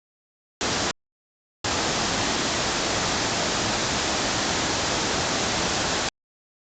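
Waterfall rushing as a steady noise, heard in two pieces cut by dead silence: a short snatch under a second in, then about four and a half seconds starting near two seconds in, ending abruptly.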